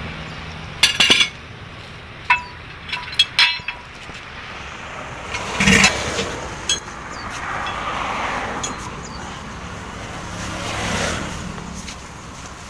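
Metal clinking and clanking from work on a truck's wheel and spare tire: a few sharp strikes in the first seconds, some with a short ring, and a heavier clank about halfway. Traffic swells past twice in the second half.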